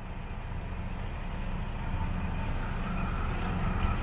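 Diesel railcar engine running steadily, a low rumble heard from inside the passenger cabin while the train stands at the platform.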